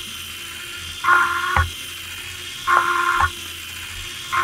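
Small Lego Technic electric motor and gear train running with a steady whir, rising to a louder, higher whine about every second and a half, each surge ending in a sharp click.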